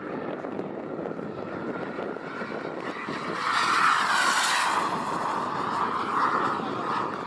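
K-140 jet turbine of an RC model jet flying past: a steady turbine hiss and whine that swells to its loudest a little past halfway through, then eases off.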